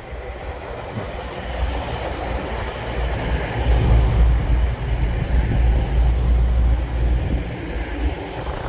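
East Midlands Railway Intercity train, a Class 222 Meridian diesel multiple unit, running into the platform to stop. Its rumble grows louder from about two seconds in and is loudest midway through.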